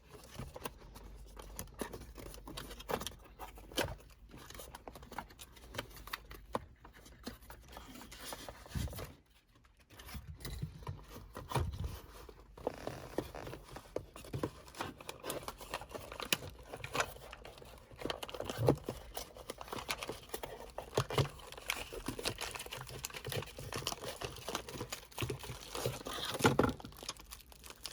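Packaging being torn open and crinkled by hand to unwrap a new shift knob: irregular tearing, rustling and small knocks, with a short pause about nine seconds in.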